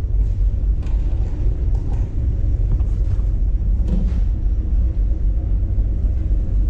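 Steady low rumble of a car ferry's engines, heard through the hull from inside the ship. About four seconds in comes a click as a cabin door's knob is turned and the door is pushed open.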